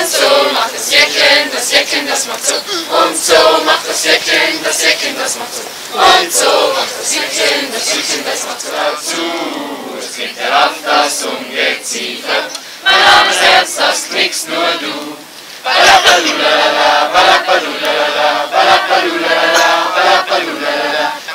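A group of young men and women singing a song together as a group. It dips briefly about two-thirds of the way through, then comes back louder.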